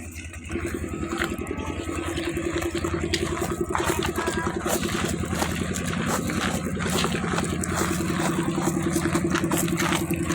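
An engine running steadily with a fast even pulse, coming in about half a second in.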